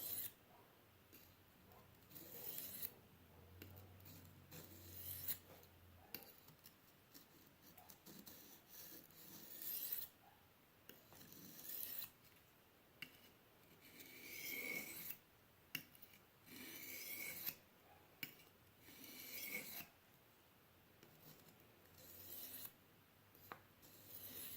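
Steel knife blade drawn across an oiled medium sharpening hone: a faint scraping rasp repeated about ten times, one stroke every two to three seconds.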